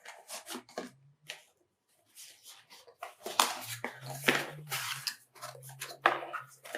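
Cardboard box and packaging being opened and handled by hand: irregular rustles, scrapes and small knocks, some in quick runs, with short pauses between them. A faint steady low hum runs under the second half.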